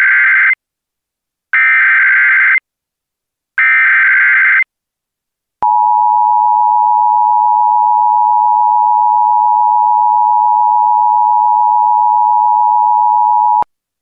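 Emergency Alert System SAME header: three bursts of digital data warble, each about a second long with a second of silence between. About a second after the last burst comes the eight-second EAS attention signal, a steady two-tone alarm at 853 and 960 Hz, which cuts off shortly before the end.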